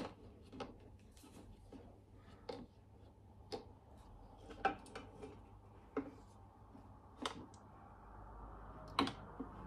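Light, scattered clicks and knocks of the plastic WunderBrew coffee filter insert and spatula against the Thermomix's stainless steel mixing bowl as the insert is hooked and lifted out of the bowl, about a dozen small taps at uneven spacing.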